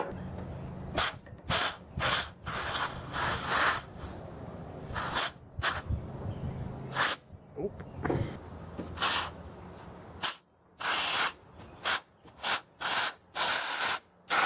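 Compressed air from a blow gun hissing in about a dozen on-off blasts, some brief and some about a second long, fed into the fluid inlet of a 1992 Toyota pickup's brake caliper to force out its pistons. The pistons on this side are stuck and slow to move.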